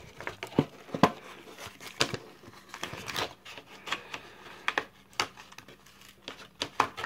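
Pokémon card packaging crinkling and crackling in irregular bursts as fingers work a coin free of it.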